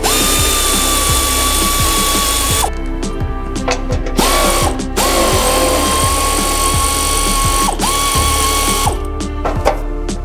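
Pneumatic air ratchet running in three bursts, a steady high whine over air hiss, turning the bolts on a steel bumper bracket. The first and last runs last a few seconds, with a short one between.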